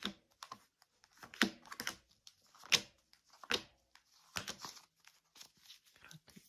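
Tarot cards being shuffled and drawn from the deck: a run of irregular sharp snaps and papery rustles, the loudest about three seconds in.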